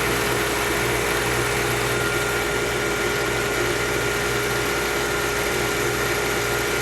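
1973 Gibson 8000 BTU window air conditioner running steadily on cool: a steady compressor hum under the rush of the fan, not that loud.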